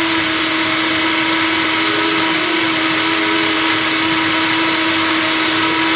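Electrolux Expressionist blender running continuously, blending frozen strawberries with yogurt: a loud, even rushing noise with a steady motor whine that holds one pitch.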